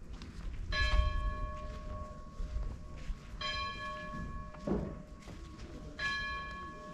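A bell struck three times, about two and a half seconds apart, each stroke ringing on for about a second before fading.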